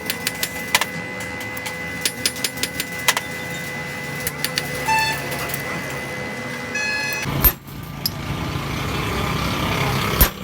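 Hammer blows on steel at an anvil, a rapid irregular run of sharp knocks with brief metallic ringing, followed from about three quarters of the way in by a steady mechanical running noise that grows slightly louder.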